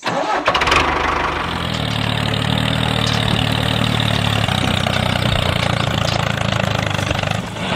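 An engine running steadily. It comes in abruptly and stays even throughout, with a brief dip just before the end.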